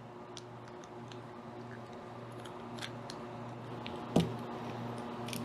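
Small clicks and light taps of parts being handled as the refrigerator's evaporator fan motor assembly is taken apart, with one sharper knock about four seconds in, over a steady low hum.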